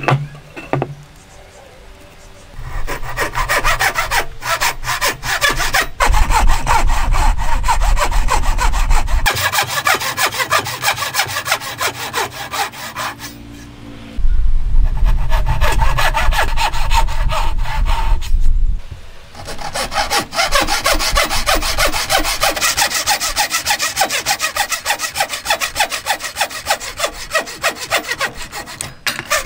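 Hand saw cutting across a hardwood table leg along a marked joint line, with quick back-and-forth strokes. It starts a couple of seconds in after a short knock and goes in three long bouts, with short pauses about halfway and two-thirds of the way through.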